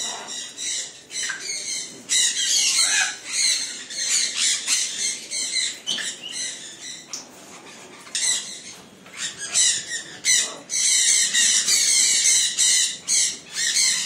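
Sun conures squawking with repeated harsh, high-pitched screeches, with a short lull past the middle before dense calling resumes.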